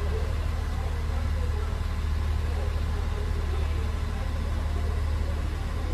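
Steady low rumble of a running vehicle engine, with faint voices mixed into the background.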